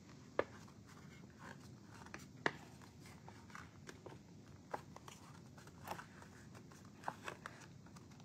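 Hands folding and creasing cardstock along its score lines: faint paper rustling with a scattering of short sharp clicks, the loudest about half a second and two and a half seconds in.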